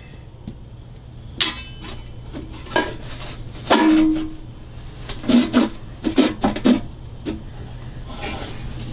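Scattered knocks and clanks against the steel body of a vintage Dobro resonator guitar as parts inside it are handled and worked loose, a few strikes making the metal body ring briefly.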